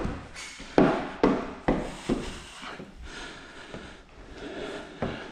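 A squeegee dragged across wet paint protection film on a car hood, pushing the slip solution out from under the film. There are several short, sudden scraping strokes in the first two seconds, then a quieter steady rubbing.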